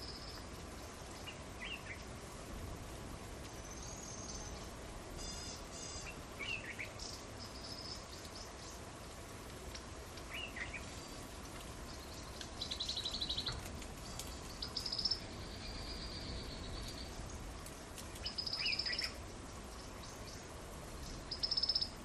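Small songbirds chirping in the background: short high-pitched chirps and whistles every second or two, with a few louder buzzy trills in the second half, over a faint low steady background noise.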